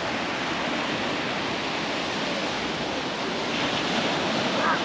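Sea surf washing onto a sandy beach, a steady hiss of small waves.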